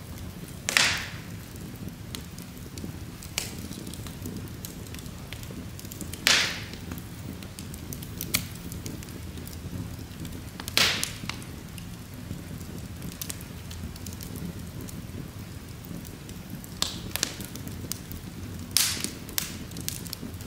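Wood logs burning in an open fireplace: a steady low rush of flame under scattered small crackles, with four loud sharp pops spaced several seconds apart.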